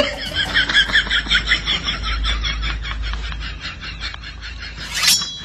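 A rapid, chattering trill of many quick pulses that fades away over about three seconds, over a low rumble, then a short whoosh near the end.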